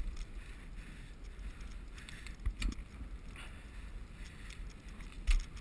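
Bicycle rolling along a paved path: a steady low rumble of the tyres, with two dull knocks, one about two and a half seconds in and one near the end.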